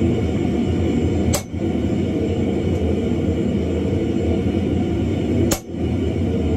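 A steady low roar with two sharp metallic strikes about four seconds apart: a hand hammer striking a punch driven into red-hot wrought iron on an anvil.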